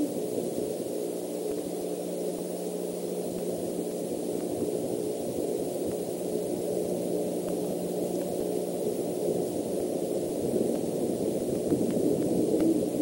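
Steady low rumble and hiss of night-time background noise on an outdoor microphone, with a faint steady hum that fades out about nine seconds in. An owl hoots faintly near the end.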